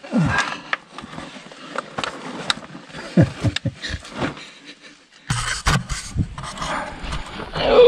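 A man crawling through a tight gap in sandstone rock: hands, knees and clothing scraping and rustling on the gritty rock floor, with short effortful grunts. From about five seconds in the camera is handled, with a rumble and knocks, and near the end comes a longer, louder falling groan.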